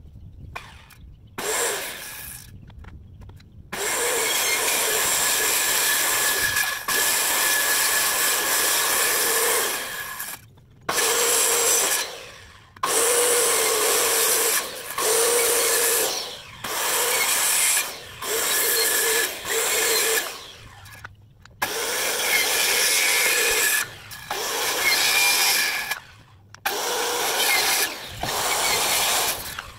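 Handheld circular saw cutting a plywood sheet along marked lines, in a series of short cuts of one to three seconds, the saw stopping and restarting about ten times. The first few seconds are quieter handling before the cutting starts.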